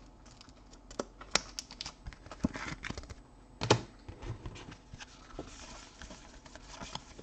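Trading cards and their plastic holders handled on a table: scattered sharp clicks and taps, the loudest about three and a half seconds in, with a few soft sliding rustles of cards.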